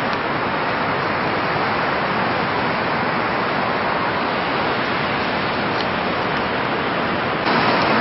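Steady, even rushing roar of Niagara Falls, a constant wash of falling water with no breaks, growing slightly louder just before the end.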